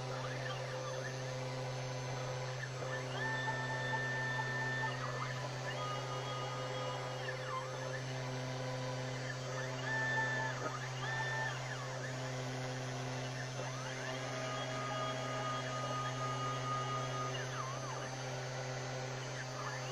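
CNC 3040 desktop router cutting: a steady low hum under the whine of its stepper motors. The whine holds one pitch for a second or two, then slides up or down to a new pitch as the axes change speed and direction.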